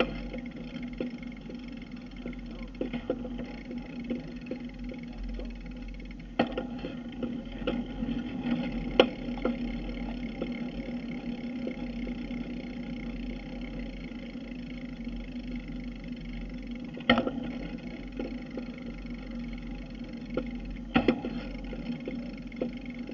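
Riding noise picked up by a camera mounted on a bicycle: a steady hum and rattle from the tyres rolling on asphalt, broken by a handful of sharp knocks as the bike jolts over bumps and cracks in the pavement.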